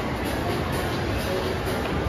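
Shopping mall ambience: steady background music and a murmur of voices from shoppers.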